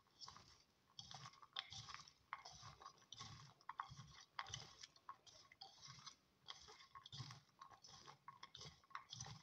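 A hand rubbing salt into cut bitter gourd slices in a bowl: a faint, irregular run of soft crunches and squishes as the wet pieces are pressed and turned.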